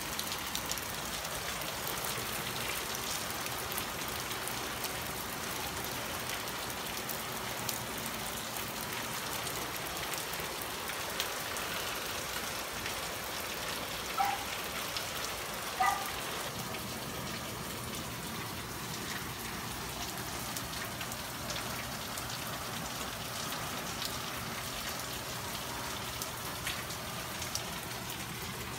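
Steady rain falling on garden foliage and paving, with many separate drop ticks. About halfway through, two short high chirp-like sounds stand out about two seconds apart.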